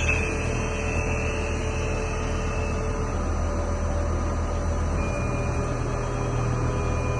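Lathe running with a steady mechanical hum. About five seconds in, the hum's low pitch shifts and a faint high whine comes in.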